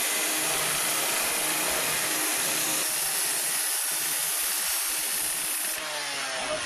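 Power saw cutting through a washing machine's cabinet with a steady, harsh grinding noise. The high, hissing part of the sound stops shortly before the end.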